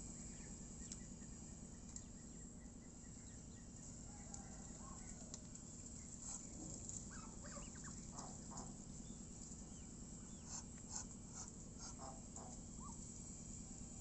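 A small flock of domestic geese and Muscovy ducks giving short, soft calls now and then, bunched in two spells in the middle and near the end, over a steady low hum.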